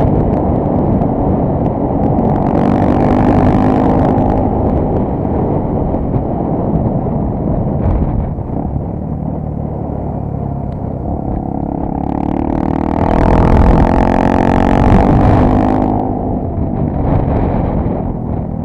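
Honda Tornado 250's single-cylinder engine running as the motorcycle is ridden. Its pitch climbs as it revs up about two-thirds of the way through, then drops back a few seconds later.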